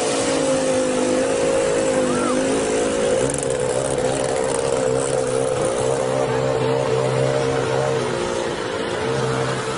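A motor vehicle engine running at a steady, even pitch while wading through floodwater, over a hiss of rushing water.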